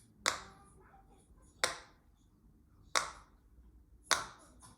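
Silicone pop it fidget toy bubbles being pressed and popping, four sharp pops about a second and a bit apart.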